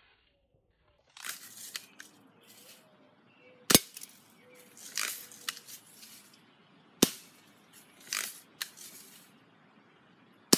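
Three sharp gunshots, about three and a half seconds apart, with softer noisy bursts between them.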